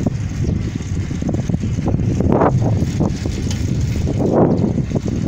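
Wind buffeting the microphone of a moving phone, with a dense low rumble of movement along a road and two louder gusts about two and four seconds in.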